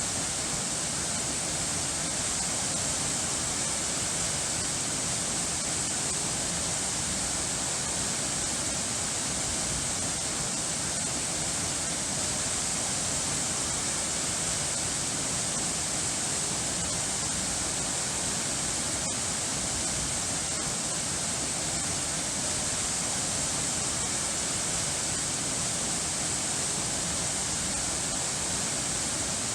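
Water rushing steadily, an even, unbroken hiss with no rise or fall.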